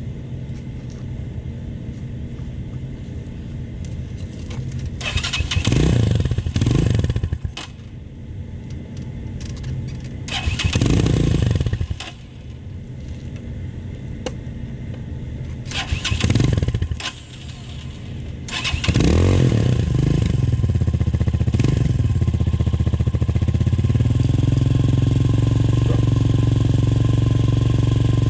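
Venom Sportster 250cc motorcycle engine running, revved four times with the throttle and sagging between revs, then settling into a steady idle near the end. The owner says it runs but keeps cutting off.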